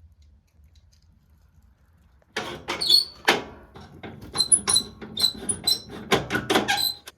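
A quick run of knocks and sharp squeaks, wooden fence posts knocking and rubbing against each other and the pallet rack as they are handled, starting abruptly a couple of seconds in.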